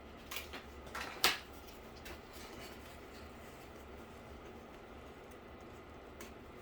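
A few short clicks and rustles of cardboard pieces being handled at the work table, the loudest about a second in, then a faint steady room hum with one more small click near the end.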